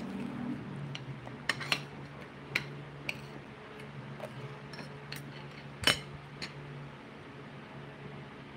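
Kitchenware being handled: a series of scattered light clinks and knocks of utensils and dishes, with one sharper clink about six seconds in.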